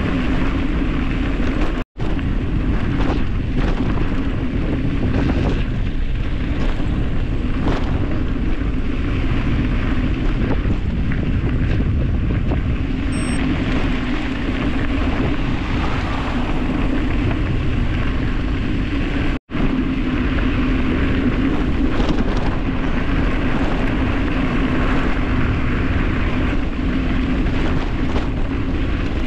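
Wind rushing over the microphone and tyres rumbling on gravel during a fast bicycle descent on a dirt road. The sound cuts out for an instant twice.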